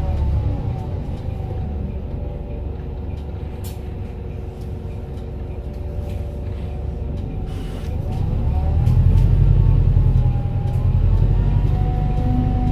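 Volvo B5TL double-decker bus under way: its four-cylinder diesel runs with a low rumble, and over it sits a whining tone that slides down and back up, the odd noise the bus is noted for. About eight seconds in there is a short hiss, and the engine then pulls louder.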